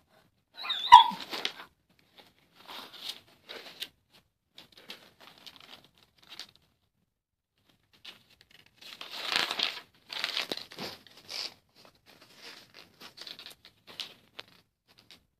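Bed covers rustling and crumpling in irregular scuffles as a German Shepherd and a kitten wrestle on a comforter, busiest in a flurry past the middle. A brief high-pitched squeak comes about a second in.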